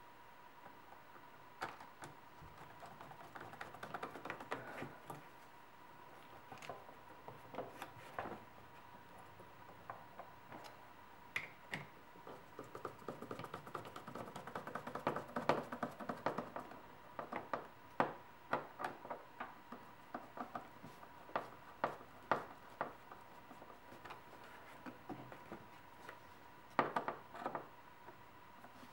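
Hand work on the intake: irregular small clicks, taps and rattles of a tool and plastic and rubber parts as the elbow boot is fitted and its hose clamp tightened, busiest in the middle, over a faint steady high tone.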